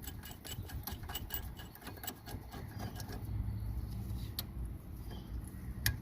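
Rapid light metallic ticking from hand tools working on a car's rear wheel hub, fading out after a couple of seconds, then a few single sharp clicks.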